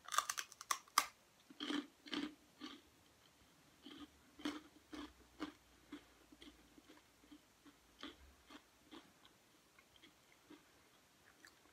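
A hard Japanese rice cracker being bitten into with a quick cluster of sharp crunches, then chewed, with crunching strokes about twice a second in runs that grow fainter.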